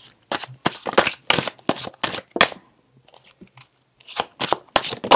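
Tarot cards being shuffled by hand: a quick run of sharp card slaps and flicks, a pause of about a second and a half, then another run near the end.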